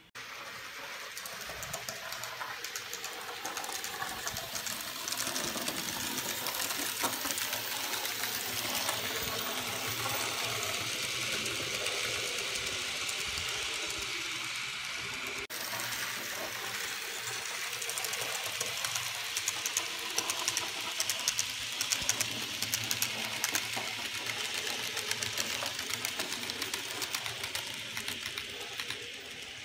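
N-scale model train running on its layout track: a Minitrix DR class 01.5 steam locomotive model with no sound module, pulling a train of coaches. Its small electric motor and gearing give a steady whir, and the wheels make a fine, rapid clicking and rattling on the rails.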